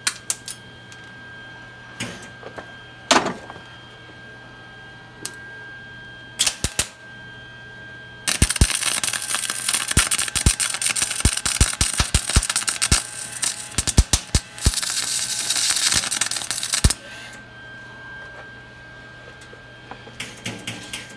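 MIG welder arc crackling for about eight seconds, starting about eight seconds in with a short break partway, after a few scattered clicks. The welder puts the heavy crackle and spatter down to having the machine set too hot.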